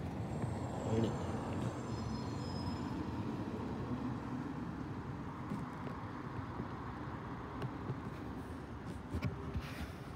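Steady low engine rumble of motor vehicles on the street, with a few faint high whistling tones in the first few seconds.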